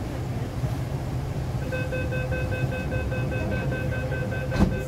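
MTR R-Train door-closing warning: a rapid string of short beeps starts about two seconds in and goes on until the end, with a single thump near the end, over the train's steady low hum.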